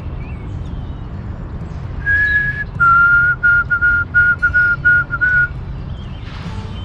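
A person whistling an imitation of the white-throated sparrow's 'oh sweet Canada, Canada, Canada' song, a call to get the sparrows to reply: one held note, then a run of shorter, slightly lower notes.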